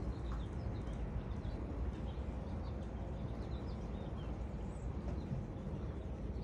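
Steady low outdoor background rumble with faint, short bird chirps scattered throughout.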